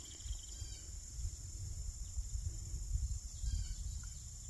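Outdoor summer ambience: a steady, high-pitched drone of crickets or other insects, over a low rumble of wind or handling on the microphone, with a few faint chirps.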